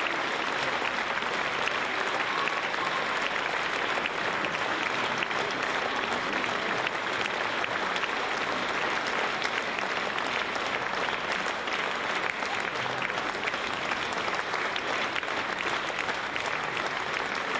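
Audience applauding steadily: dense, even clapping that does not let up.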